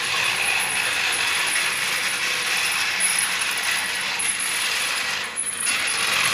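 Loud, continuous buzzing of a cicada chorus, a dense raspy drone that wavers in level without stopping.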